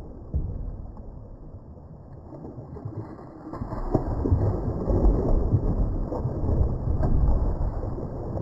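Irregular low rumbling and crackling noise, growing louder from about four seconds in.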